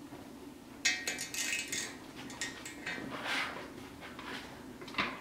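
An 8 mm Allen bit on a ratchet loosening a threaded oil galley plug in an engine block, giving a sharp metallic clink about a second in, then scattered clicks and clinks as it is worked.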